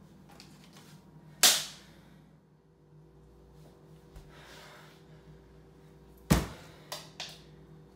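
A fist banging against a refrigerator: one sharp blow about one and a half seconds in, then a hard blow a little after six seconds followed quickly by two lighter ones. Breathing can be heard between the blows.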